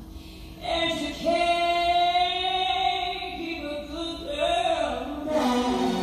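A woman's voice singing a long, held note, then a shorter phrase, with little backing; a fuller band comes in near the end.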